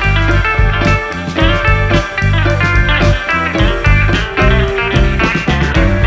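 Background music: a guitar-led blues-rock track with a steady bass beat.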